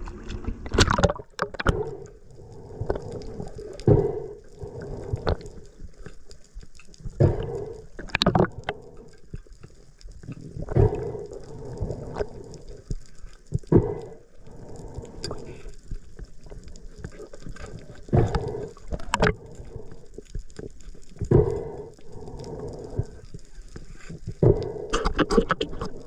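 Water sloshing and gurgling against the microphone, in irregular surges every one to four seconds.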